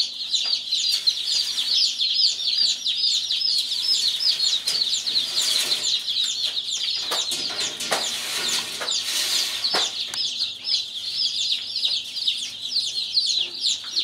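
A crowd of newly hatched chicks peeping nonstop, a dense chorus of overlapping high-pitched cheeps, over a faint steady low hum. A few brief rustles come about halfway through.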